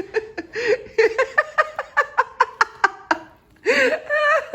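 High-pitched laughter: a run of quick, even 'ha-ha' pulses, about five a second, then a longer wavering vocal sound near the end.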